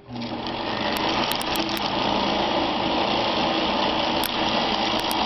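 Kenmore 158 sewing machine's electric motor running at speed with the handwheel declutched, spinning the bobbin winder as a bobbin fills with thread. It starts abruptly and builds up over the first second, then runs steadily.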